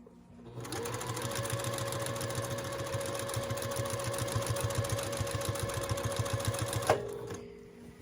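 Juki TL-18 QVP straight-stitch sewing machine running at a steady, fast stitch rate, sewing a zipper in. It starts about half a second in and stops with a click about seven seconds in.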